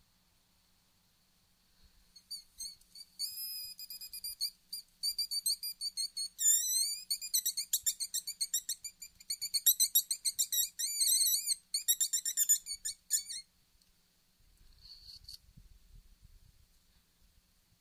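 Wolfers Harp mouth-blown fox call sounding a rapid series of high squeaks and squeals, some bending up and down in pitch, starting about two seconds in and stopping sharply about eleven seconds later.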